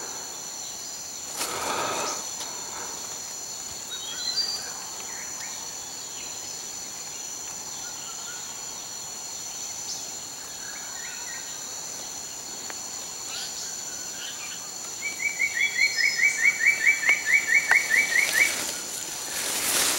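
Forest ambience: a steady high insect drone, with a bird calling a fast run of about a dozen short rising notes, three or four a second, for a few seconds near the end. Brief rustles of dry leaf litter near the start and at the very end.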